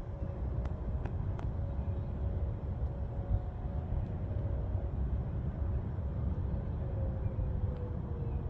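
Distant Whelen electronic outdoor warning sirens sounding a faint steady alert tone over a low background rumble. About six and a half seconds in, the tone starts sliding down in pitch as the alert winds down.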